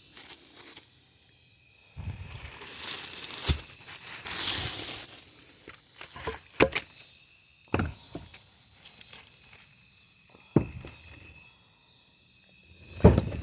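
Leaves and vines rustling as they are pulled up by hand, with a few sharp snaps and knocks, the loudest near the end. An insect chirps steadily in the background, about twice a second.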